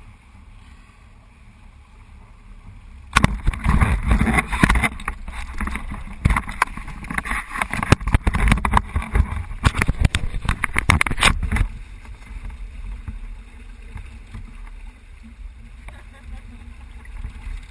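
Loud rushing and splashing water noise with crackling on the microphone, starting abruptly about three seconds in and dropping back to a quieter wash about twelve seconds in.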